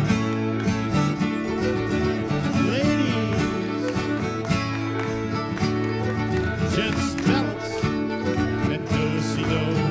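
Live band playing a reel with a steady dance beat.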